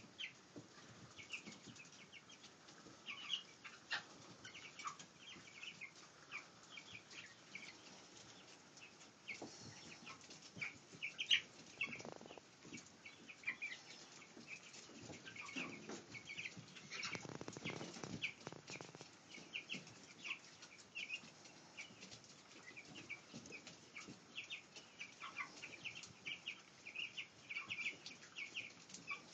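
A flock of three-week-old chicks peeping in short, high chirps while they feed, with light pecking clicks and rustling in the litter. A couple of louder rustling bursts come about halfway through.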